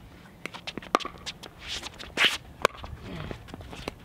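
Pickleball rally: paddles popping against the plastic ball several times, the sharpest hits about a second in and a little past halfway, with quick footsteps and shoe scuffs on the hard court.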